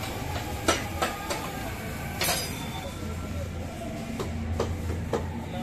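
Irregular sharp metal knocks and clinks from hand tools during repair work under a JCB 3DX backhoe loader, with a longer scrape a little over two seconds in, over a steady low hum.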